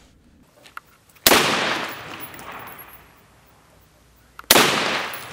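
Schmeisser AR-15 rifle firing two single shots about three seconds apart, each followed by a long trailing echo.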